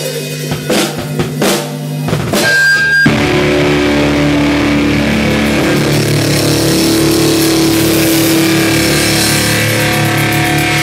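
Live rock band on drum kit and electric guitar: a few loose drum hits over a steady low hum, then about three seconds in the full band comes in loud and keeps playing.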